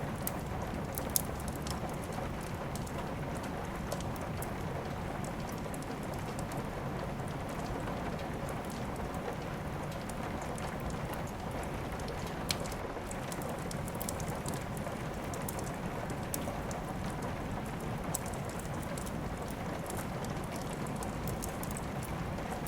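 Steady rain mixed with a crackling fireplace: an even hiss of rainfall with scattered sharp pops and clicks at irregular moments.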